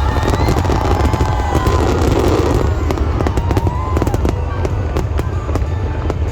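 Fireworks bursting in rapid succession: a dense crackling over a deep booming rumble. The crackle thins out about halfway through, leaving scattered single pops.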